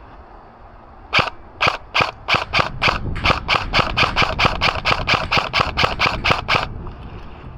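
Airsoft electric gun firing more than twenty quick semi-automatic shots as sharp cracks. A few shots come spaced out at first, then a steady run of about five a second that stops abruptly near the end.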